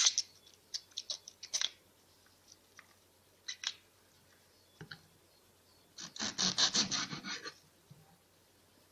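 Tough outer leaves being snapped and torn off a fresh artichoke by hand: scattered crisp snaps, then a quick run of crackling about six seconds in.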